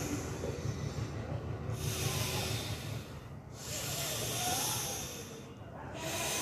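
A person doing a yoga breathing exercise, taking long, forceful, audible breaths: a rush of air about every two seconds, each lasting roughly one and a half to two seconds.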